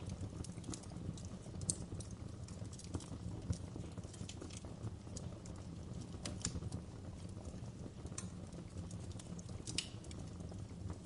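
Wood fire crackling: irregular sharp pops and snaps, a few louder than the rest, over a low steady rumble of burning.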